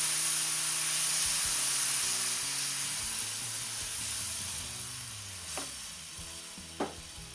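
Room-temperature sugar syrup poured into hot semolina toasted in margarine, hissing and sizzling loudly as it hits the hot fat, then slowly dying down as the pan cools. Two brief clicks come near the end.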